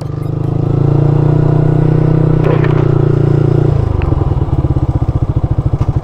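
Yamaha R15's single-cylinder four-stroke engine running steadily at low speed, then about four seconds in the throttle closes and it drops to a pulsing idle as the bike comes to a stop.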